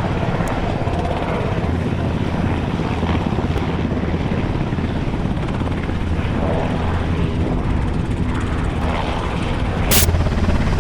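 Sikorsky S-92A Coastguard rescue helicopter running, its rotors beating steadily with a low rumble. A single sharp click sounds near the end.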